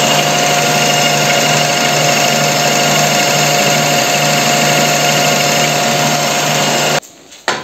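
WM210V benchtop metal lathe running under power, with a carbide insert taking a cut along a steel shaft: a steady hum with a higher constant whine over the hiss of cutting. It cuts off suddenly near the end.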